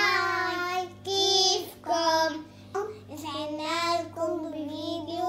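Children's voices singing a short tune in a string of long held notes.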